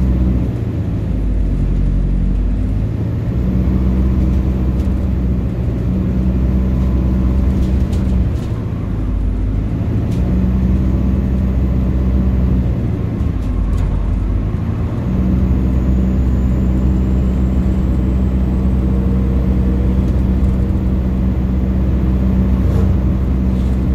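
Alexander Dennis Enviro400H hybrid double-decker bus under way, heard from inside the upper deck: a steady low drone from the drivetrain with road rumble. Its note drops away briefly a few times before picking up again.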